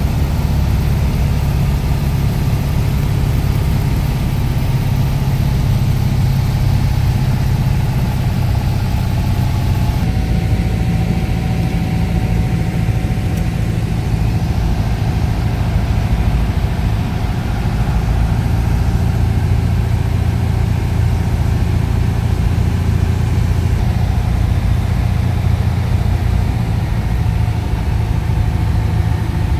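Cessna 172's piston engine and propeller running steadily in flight, heard from inside the cabin. Its tone shifts slightly about ten seconds in.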